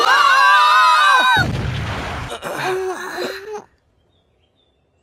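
An anime boy's voice yelling as he falls, broken off about a second and a half in by a low thud, then a short vocal cry.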